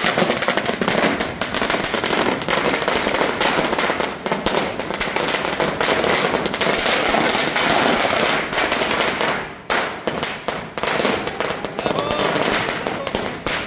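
A string of firecrackers (a 'ladi' of bombs) going off in a rapid, unbroken chain of loud cracks, thinning into scattered pops over the last four seconds.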